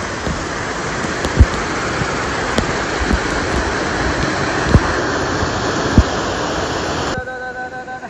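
A valley-stream waterfall rushing steadily over rocks into a pool, with a few low thumps. The rushing cuts off abruptly near the end.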